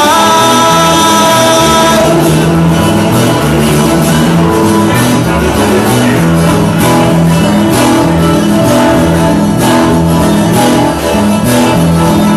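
Loud band music with guitar, bass and a steady beat, with some singing.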